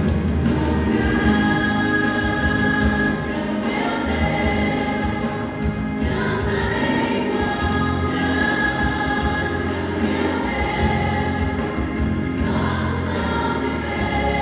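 Teenage church vocal group singing a gospel song together over instrumental backing, holding long notes of a second or more.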